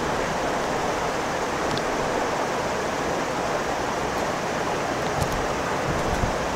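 Steady, even hiss of room noise with no speech, and a couple of faint clicks near the end.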